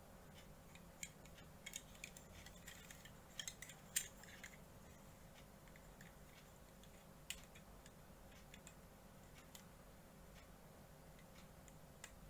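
Small plastic parts of a model kit being handled and fitted: a cluster of sharp clicks and taps in the first few seconds, then two lone clicks, over a faint steady hum.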